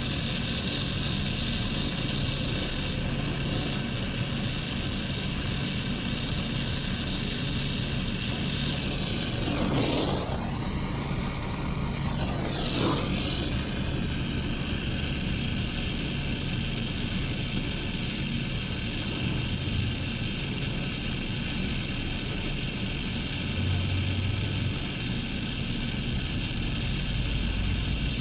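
Brazing torch flame hissing steadily while copper joints on a replacement thermostatic expansion valve are brazed, with a steady low hum underneath. The hiss changes briefly between about ten and thirteen seconds in.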